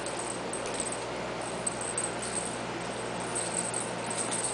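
Maltese puppies scampering on a vinyl floor: light ticking of claws and a faint jingling rattle over a steady background hiss.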